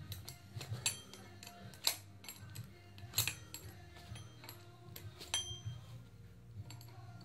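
Wrench clicking and clinking against the bolts of an oil pump as they are loosened: irregular sharp metallic clicks, some ringing briefly.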